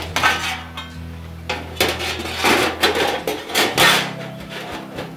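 Sheet-metal panels of a metal chicken nesting box clanking and scraping as the nest bottom is worked into the frame. There is a string of knocks and rattles, the heaviest about two to four seconds in.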